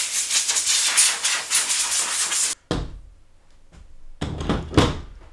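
A loud, steady hiss like a spray of air that cuts off sharply after a couple of seconds, then a few knocks and thumps of parts being handled in the computer case.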